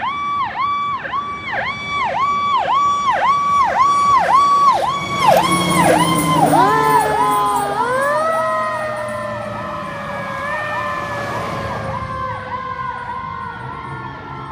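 Fire engine's electronic siren sweeping rapidly, about two cycles a second, growing louder as the truck approaches. A loud rush as it passes close, then a second siren tone rises and slowly falls in pitch while the sweeping siren fades as the truck drives away.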